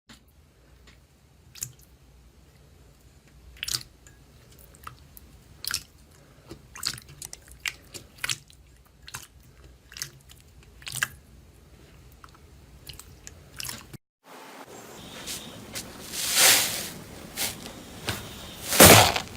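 A soft crunchy material squeezed and pressed by hand, crackling with scattered small pops. After a short break it changes to a different clip with louder, heavier crunches, two of them standing out near the end.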